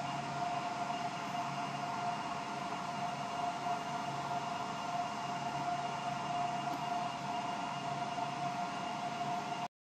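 Steady machine whir with a constant whine running through it, cutting off suddenly near the end.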